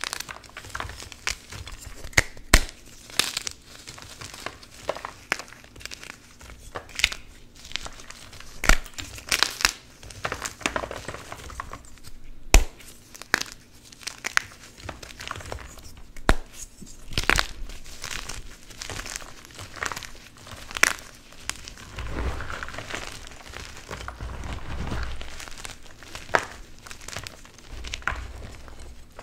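Blocks of Plain Jane Cap gym chalk being snapped and crushed by hand: irregular crunchy cracks as pieces break off, with crumbling of chunks and powder between them. About three quarters of the way through there is a longer stretch of continuous crumbling.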